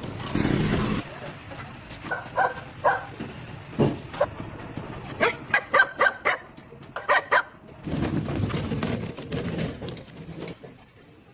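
A dog barking in several quick runs of short barks, with a couple of louder stretches of low rumbling noise in between.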